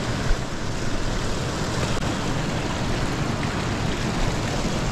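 Water rushing over a small concrete river weir: a steady, even rushing noise, with one brief tick about a third of a second in.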